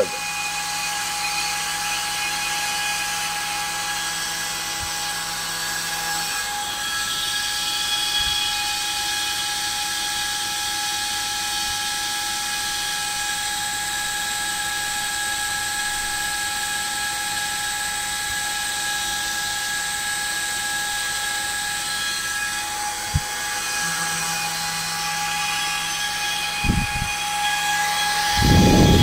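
Electric cooling fans running steadily on a power amplifier's heatsink, a whine of several fixed tones over a rush of air. Near the end a louder rush of noise comes in.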